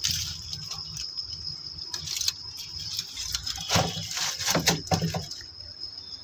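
Foil-covered paper-cup ice-cream moulds handled in a freezer: a run of rustles, clicks and light knocks as they are pushed into place, thickest near the end, over a steady high-pitched whine.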